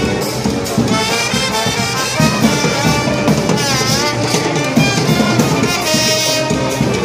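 Street brass band of trumpets, trombones and drums playing a tune.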